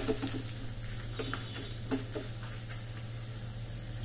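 Hot ghee tempering of garlic, chillies and spices sizzling in a pan, with a few light clicks of a spoon stirring in the first couple of seconds. Red chilli powder has just gone into the hot ghee, off the flame.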